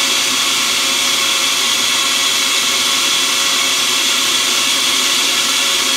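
Countertop blender running steadily, puréeing chunks of boiled squash into a smooth purée.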